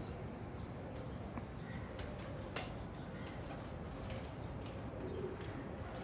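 Domestic pigeons cooing faintly over a steady background hiss, with a few short clicks; the sharpest click comes a little before halfway.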